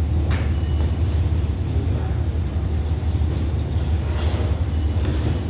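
Steady low drone of a stationary train's Hitachi diesel-electric locomotive idling.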